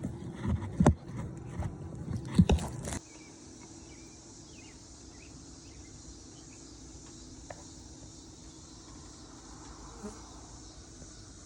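A honeybee colony buzzing with a steady hum. For the first three seconds, loud irregular knocks and scrapes sound over it; after that, only the hum remains.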